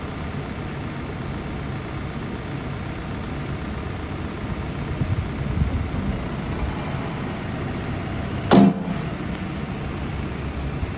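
Case 590SN backhoe's diesel engine running steadily, with a brief loud tonal blip about eight and a half seconds in.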